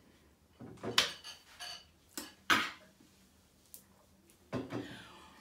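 A few short, scattered clinks and clatters of cutlery against bowls of noodles as they are eaten.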